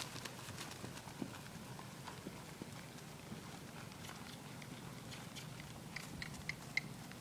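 Soft, faint hoofbeats of a young saddled filly moving on grass at the end of a lunge line. A few short high ticks near the end.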